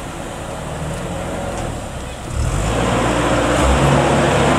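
Narrowboat diesel engine running steadily, growing louder about two seconds in with a rush of noise over it.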